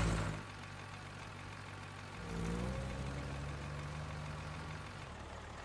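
Low, steady engine hum of a cartoon car-carrier truck driving, a little louder with a slight rise in pitch from about two seconds in.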